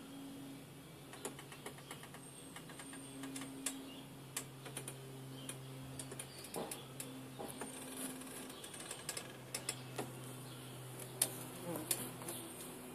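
Wood wasps buzzing as they fly around a hole-riddled log, a low hum that comes and goes, with many irregular sharp ticks and clicks. Faint high bird chirps now and then.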